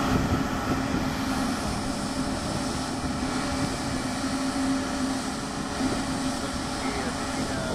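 Jet engines of an Airbus A320neo running at low thrust as the airliner taxis along the runway: a steady rumble with a constant droning tone through it.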